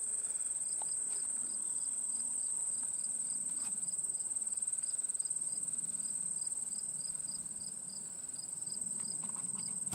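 Crickets and other insects calling: a steady high-pitched trill, with a lower chirp repeating about three times a second over it.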